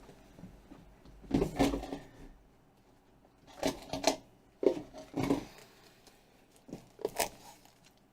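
Tablet parts and tools being handled on a workbench: several short clusters of hard plastic clicks and taps, with quiet between them.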